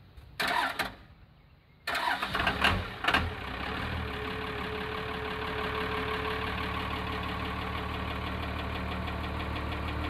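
12-valve Cummins 5.9-litre inline-six diesel in a 1994 Dodge Ram 3500: after a short burst of sound about half a second in, the freshly replaced starter cranks it about two seconds in, the engine fires and catches within a second or so and settles into a steady diesel idle.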